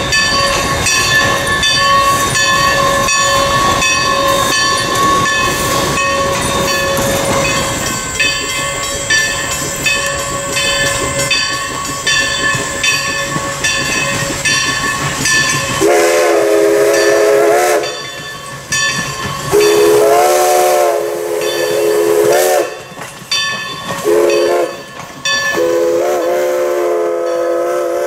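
Alco steam locomotive No. 11 running with its passenger train, a fast, even rhythm of strokes. In the second half its steam whistle blows four times, long, long, short, long: the grade-crossing signal.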